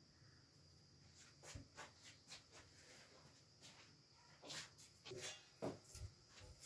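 Faint clicks and knocks of cookware being handled on a gas stove: an iron tawa and a steel pot shifted between the burners. The knocks come singly at first, then cluster more thickly about four and a half to six seconds in.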